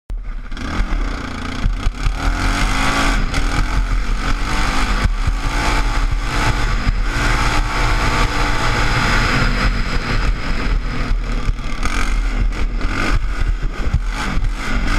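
Yamaha Raptor 660 quad's single-cylinder four-stroke engine running under load as it is ridden along a dirt track, its pitch rising and falling as the throttle opens and closes. A steady low wind rumble sits underneath on the helmet-mounted microphone.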